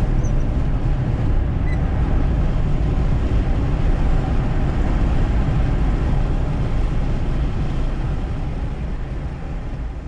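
Car driving on a dirt road, heard from inside the cabin: a steady low rumble of engine and tyres, fading out near the end.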